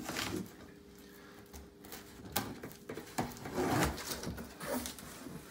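Knife slitting the packing tape on a heavy cardboard shipping box, then the thick cardboard flaps scraping and rustling as they are pulled open, loudest about two-thirds of the way in, with a few sharp clicks.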